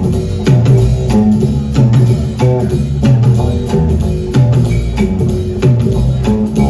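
Live rock band playing an instrumental passage with a steady beat: drum kit, a repeating bass line and guitar.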